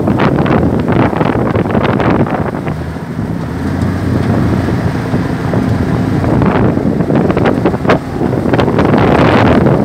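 Two-cylinder 24 hp MRS-24 boat mud motor running steadily under way, its low hum heard through heavy wind buffeting on the microphone.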